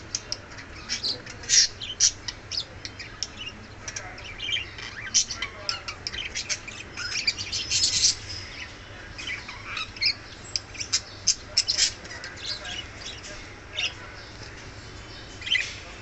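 Budgerigars chirping and chattering: quick, high chirps and short squawks that come thickest about halfway through, over a steady low hum.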